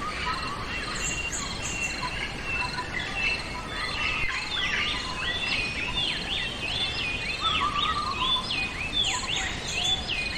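Songbirds chirping, with a fast series of repeated down-slurred whistles from about four seconds in. A steady pulsing insect trill runs underneath.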